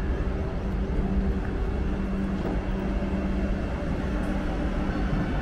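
Vande Bharat Express electric multiple-unit train noise: a steady rumble with a constant low hum.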